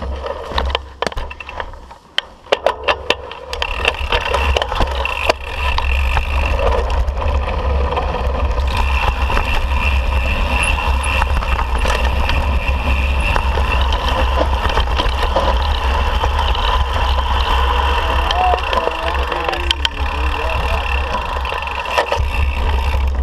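Mountain bike being ridden down a dirt singletrack, heard from a camera on the rider: wind rumbling on the microphone, with tyres rolling over dirt, a steady whir, and the bike rattling. A few sharp clicks and knocks come in the first seconds as the rider gets going.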